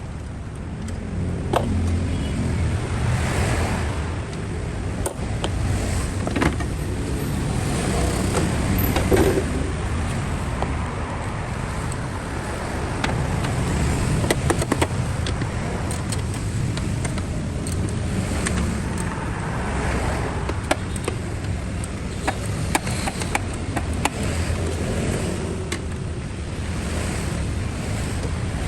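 Toyota Prius running: a steady low rumble with scattered clicks and knocks throughout.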